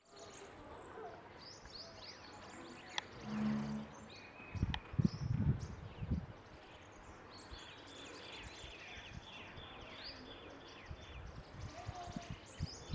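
Wild birds chirping and calling, with a run of short, quickly repeated falling notes in the second half. A few low thumps come near the middle.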